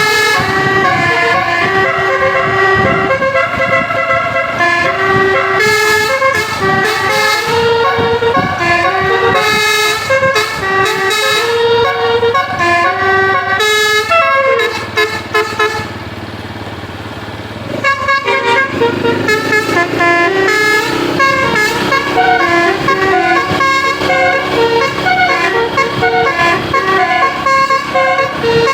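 Bus's Basuri multi-tone 'telolet' horn playing a tune of stepped notes, breaking off briefly about two-thirds of the way through, leaving engine and road noise, then playing again.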